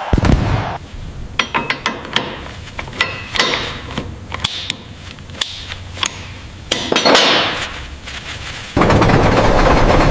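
Irregular sharp metal taps and clinks, some ringing briefly, typical of a hammer striking metal parts during restoration work. Near the end a steady loud rushing noise starts abruptly.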